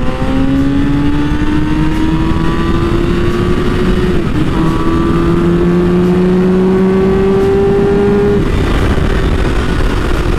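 Kawasaki ZX-6R 636's inline-four engine pulling steadily at highway speed, its note slowly rising, dipping briefly about four seconds in, rising again and easing off near the end. Heavy wind rush on the helmet-mounted microphone.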